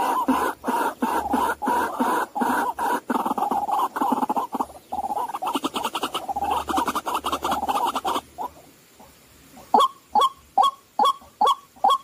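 White-breasted waterhens calling: a dense, fast run of croaking calls that cuts off suddenly about eight seconds in, then after a short pause loud single 'kwak' calls repeated about twice a second.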